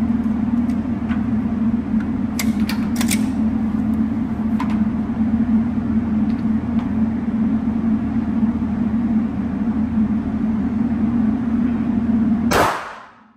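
Range target carrier's electric motor running with a steady hum as it sends the paper target out to 10 metres, with a few faint clicks about two to three seconds in; it stops abruptly with a clunk near the end.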